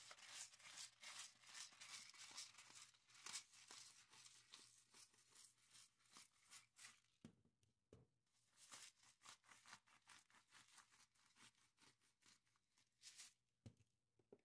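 Hand-held pepper grinder being cranked: quiet, rapid crunchy clicking in spurts, pausing briefly about seven seconds in and stopping near the end, with a few soft knocks.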